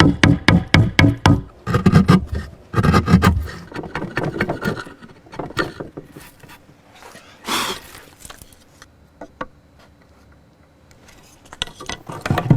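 Hand tools striking wood in quick blows, about four to five a second, then slowing into scattered knocks and scraping, with one brief swish near the middle and a couple of sharp hits near the end.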